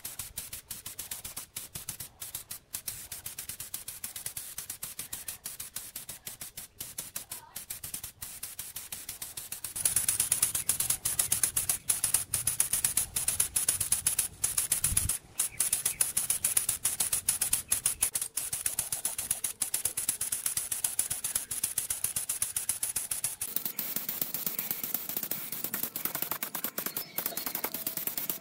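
Gravity-feed paint spray gun hissing as it sprays paint, the hiss much louder from about a third of the way in. A dense crackle of fine ticks runs underneath.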